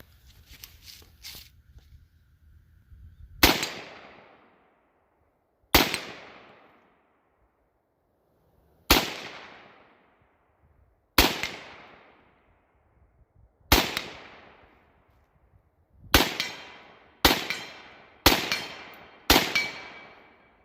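Anderson AM-15 AR-15 rifle in 7.62x39 firing steel-cased rounds: nine single semi-automatic shots, each with a fading echo. The first five come two to three seconds apart, and the last four come about a second apart.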